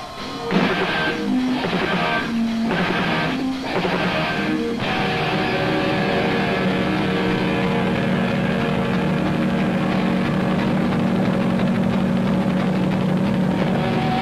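Live heavy-metal band with distorted electric guitars. It hits a few short chord stabs over the first five seconds, then holds a long sustained chord.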